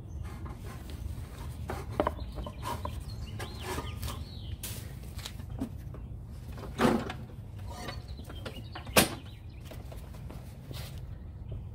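Handling noises of a walk-behind mower being tipped over onto its side on concrete: scattered clicks and scrapes, a louder scraping clunk about seven seconds in and a sharp knock about nine seconds in.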